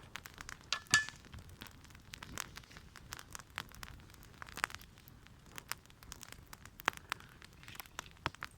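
Wood campfire burning, with irregular crackles and pops, the loudest pop about a second in.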